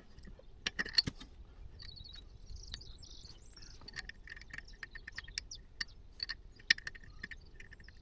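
Scattered light metallic clinks and taps of a spanner and other hand tools against metal parts, with short high chirps in the background.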